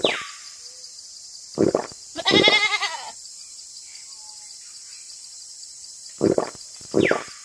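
A farm animal bleating once with a wavering pitch, about two and a half seconds in, among a few short sharp sounds near the start and end, over a steady high hiss.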